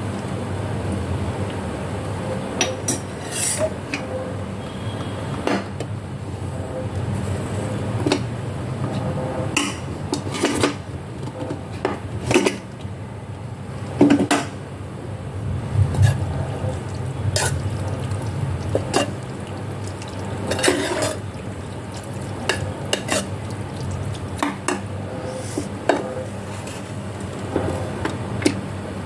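Metal utensils clinking and scraping against pots and dishes, in sharp, irregular strikes, over a steady low hum.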